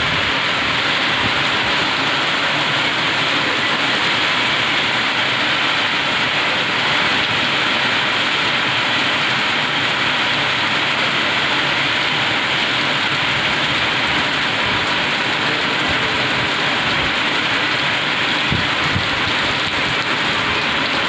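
Heavy rain falling steadily on wet ground and puddles, an even, unbroken wash of noise.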